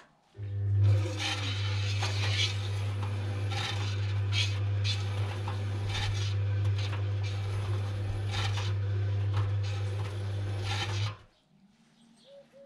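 Washing machine motor running with a steady low hum and a scraping, rubbing noise over it. It starts abruptly about half a second in and cuts off about eleven seconds in.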